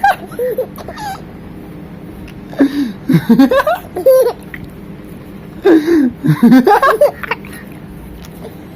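A toddler vocalising in three high-pitched bursts without clear words: one near the start, one about three seconds in, and one about six seconds in.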